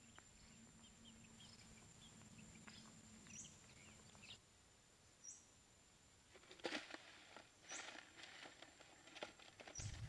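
Faint outdoor ambience with scattered bird chirps over a thin, steady, high whine. From about six and a half seconds in, a run of scratchy clicks and taps joins them.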